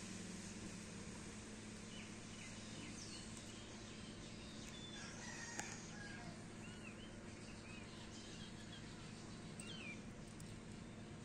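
Faint outdoor background in which a rooster crows in the distance near the middle and small birds give short chirps. A single sharp click comes about halfway through.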